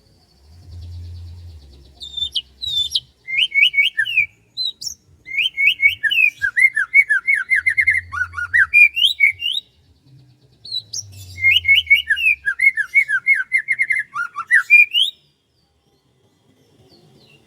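A songbird singing three long bursts of rapid, repeated sweeping chirps, each a few seconds long, with short pauses between them; then the song stops near the end.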